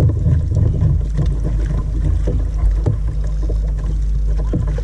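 Wind buffeting the camera microphone as a steady, uneven rumble, with choppy water splashing against a plastic kayak hull.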